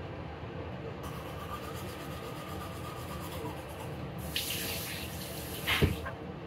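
Water running from a tap into a washbasin while hands work under it, with a sharp clack near the end.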